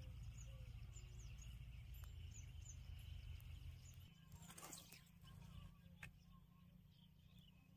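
Near silence with faint chirps of small birds. About four and a half seconds in comes a short swish as the fishing rod is swept up and the line lifted out of the water.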